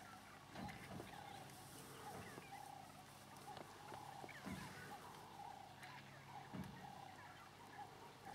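African wild dogs twittering: many short, high chirping calls repeating over and over, faint.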